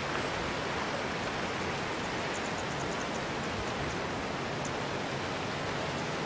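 Steady, even hiss of background noise with no distinct sound events, broken only by a few faint, high ticks about two to three seconds in.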